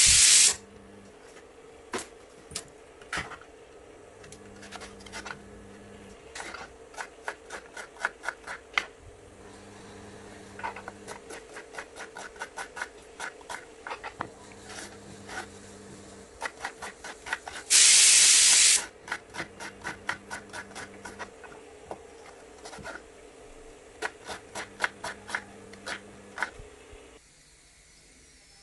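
Kitchen knife cutting raw plantain on a wooden cutting board: runs of quick taps, several a second, with two louder rasping noises about a second long, one at the start and one midway.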